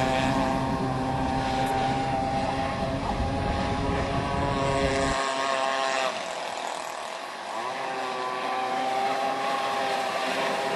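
Radio-controlled speedboat's motor running at speed as the boat skims across the water, a steady high-pitched drone that fades a little about six to seven seconds in and then comes back up. A low rumble underneath stops abruptly about five seconds in.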